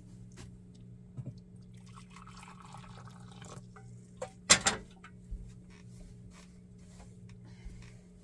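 Hot water poured from a stovetop kettle into a ceramic bowl, splashing for about two and a half seconds. About four and a half seconds in comes a loud clank as the kettle is set back down on the stove, then a few light knocks, over a steady low hum.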